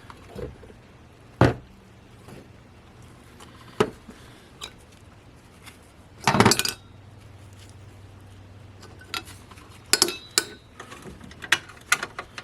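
Scattered metallic clinks and clicks of hand tools and bolts being handled while the engine-bay crossbar is fitted. There is a louder brief rattle about halfway through and a quick run of clicks near the end.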